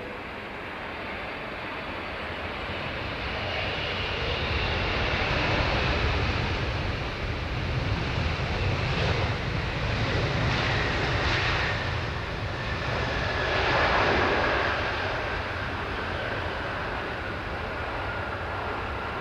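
Boeing 777-200's jet engines on touchdown and landing roll. The engine noise swells a few seconds in, is loudest in the middle and then eases, with a whine that slides slowly down in pitch as the airliner slows.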